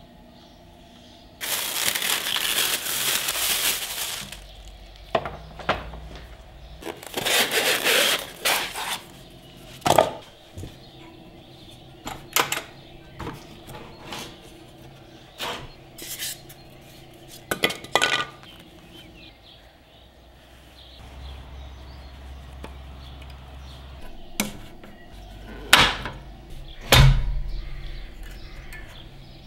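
Handling noises from a Bosch GTM 12 JL combination saw being set up by hand, with the motor off: two spells of rustling early on, then a series of sharp clicks and clattering knocks as its plastic and metal levers and parts are worked. Two loud knocks come near the end.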